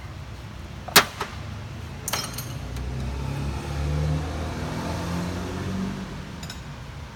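A sharp metallic clink of a wrench on metal about a second in, with a couple of lighter clinks after it. Then a vehicle engine rumbles in the background, its pitch shifting as it swells about four seconds in and fades away.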